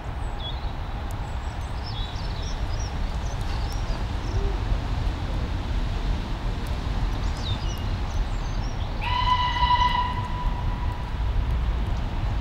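Steam locomotive working as it approaches, with a steady low rumble, and one whistle blast about nine seconds in that lasts around a second before trailing off. Birds chirp faintly.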